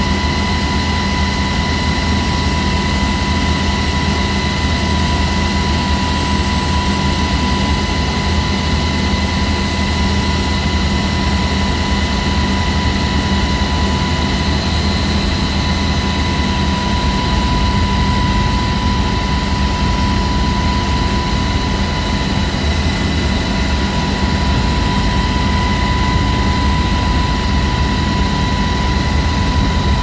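Loud, steady cabin noise inside a Navy helicopter in flight: engine and rotor noise with a constant high whine running through it.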